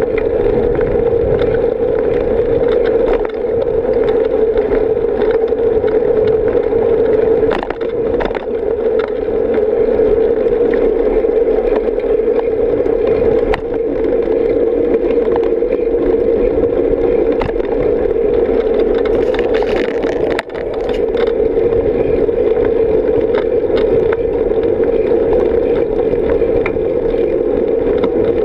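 Wind and road noise of a bicycle riding along a paved path: a steady, loud rushing drone with small rattles. It dips briefly a few times.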